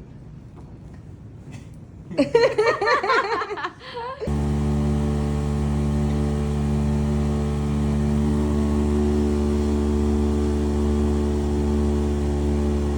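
A brief, loud, wavering voice-like sound, then, about four seconds in, a steady machine hum with a low pitch that holds completely level.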